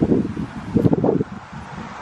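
Wind buffeting the microphone in two short gusts of rumble, one at the start and a second about a second in, over steady outdoor hiss.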